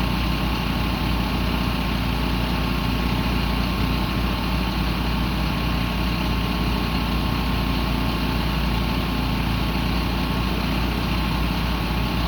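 An engine idling steadily, with a constant low rumble that does not rise or fall.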